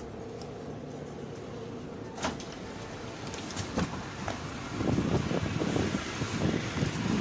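A vehicle running, with a steady noise and a few sharp clicks. From about five seconds in, a louder, uneven low rumble takes over.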